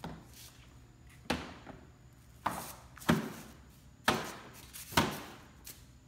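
Plastic hood of a kids' ride-on Ford Mustang being shut and pressed down by hand: a series of about six sharp knocks, roughly a second apart.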